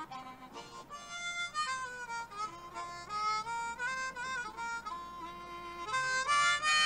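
A harmonica playing a slow melody, its notes sometimes sliding between pitches. It gets louder near the end.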